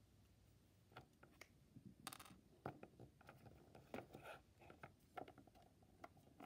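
Near silence with faint scattered taps and light scrapes: small plastic toy figures being handled and set down on a wooden surface.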